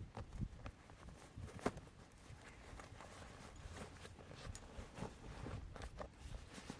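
Drawstring bag being handled and opened: fabric rustling with scattered small clicks and knocks.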